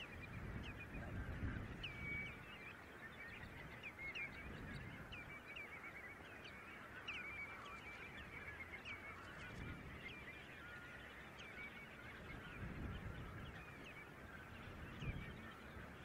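A large flock of birds calling, many short overlapping calls that never let up. Gusts of wind rumble low on the microphone now and then.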